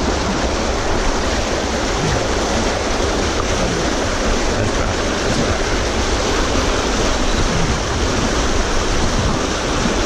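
River rapid rushing and churning over rocks close by, a loud, steady, unbroken noise of fast-moving whitewater.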